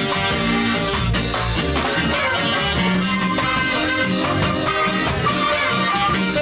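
Ska band playing live, a steady full-band groove of guitar, bass, drums and horns.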